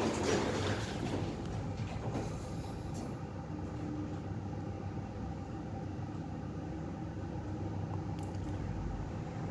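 Schindler traction lift's sliding doors closing in the first few seconds, then a steady low mechanical hum.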